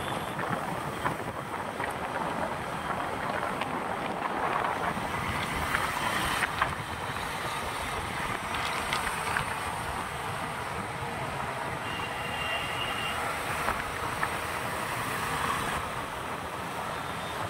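Steady road and traffic noise with wind rush while travelling along a busy road, with scattered light knocks and a brief high tone about two-thirds of the way through.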